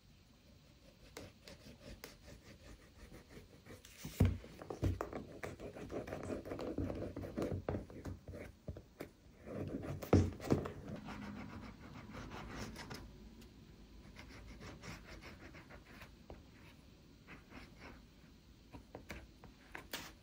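Hand work on leather at a bench: rubbing and scraping strokes, strongest in the middle, broken by a few sharp knocks about four, five and ten seconds in, the one near ten seconds the loudest.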